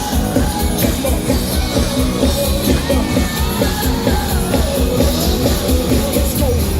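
Loud live dance-pop music over a concert sound system, with a heavy, steady beat and some singing.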